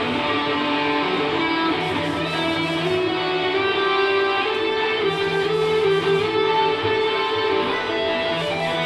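A solo electric guitar playing, its notes ringing on and moving from one pitch to another.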